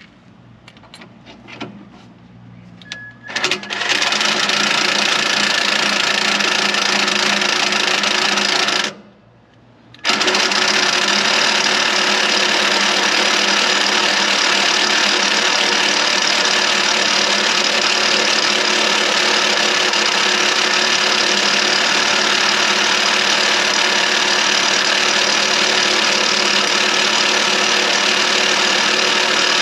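Electric drill running steadily under load, boring a large hole through a steel bar. It starts after a few clicks about three and a half seconds in, stops for about a second near the nine-second mark, then runs on.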